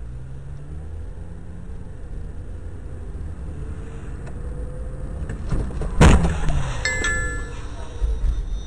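Car accelerating from a stop, engine note rising, then a sudden loud impact about six seconds in, followed by a few short electronic beeps.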